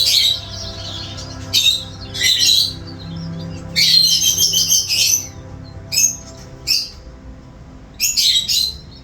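Small birds chirping and calling in short bursts, with one longer run of calls about four seconds in, over a steady low background of held tones.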